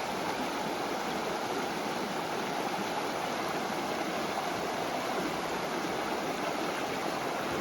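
A creek running: a steady rush of flowing water.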